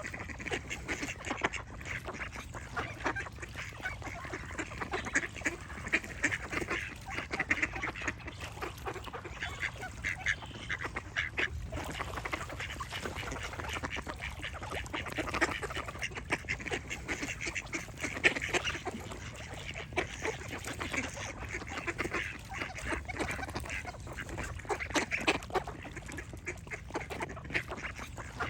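A flock of ducks quacking, many calls overlapping without a pause.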